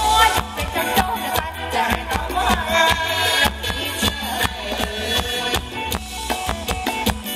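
Live band playing upbeat Thai ramwong dance music, with a steady drum beat under a melody line.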